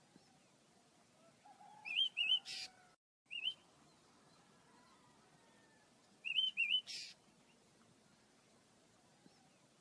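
Pet birds chirping: short, high, wavering notes in quick pairs, each pair followed by a brief harsh note, coming in two bouts about four seconds apart.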